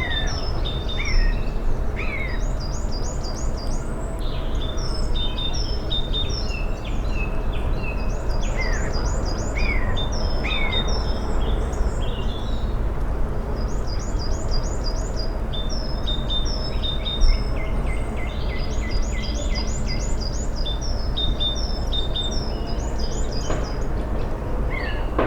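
Woodland birdsong from several birds: repeated quick phrases of high chirping notes and short falling whistles, over a steady low rumble.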